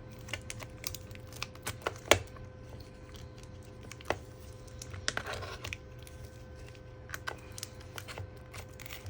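Scattered small clicks and scraping as a MacBook Pro's glued battery is pried up from the palm rest, the adhesive crackling and tearing. A sharper click comes about two seconds in, and a short scraping stretch about five seconds in.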